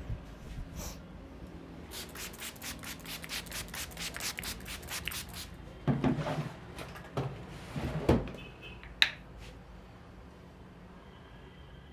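Hands rubbing rapidly and rhythmically in a head massage, about four strokes a second for a few seconds, followed by a few heavier thumps and one sharp click about nine seconds in.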